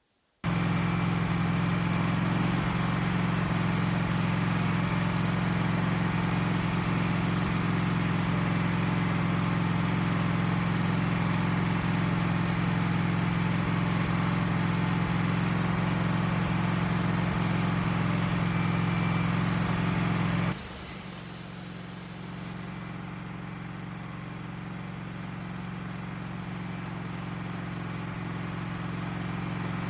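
Wood-Mizer LT15 sawmill engine running steadily at speed, then dropping abruptly to a slower, quieter run about twenty seconds in, and picking up gradually toward the end. This is the engine's idle being tested after it had been bogging down and wanting to stall at idle.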